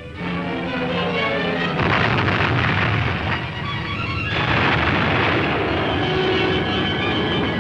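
Dramatic orchestral cartoon score, with surges of crashing, explosion-like effects about two seconds in and again past the middle as the death-ray machine is torn apart.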